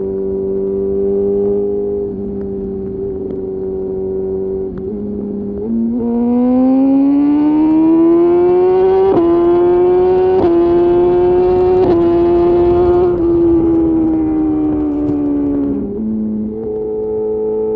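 BMW S1000RR inline-four engine through an Austin Racing GP1R full titanium exhaust with Inconel headers, heard from the rider's seat. It holds a steady cruise, then the throttle opens about six seconds in and the note climbs with three short breaks, falls away as the throttle rolls off, and settles back to a steady cruise near the end.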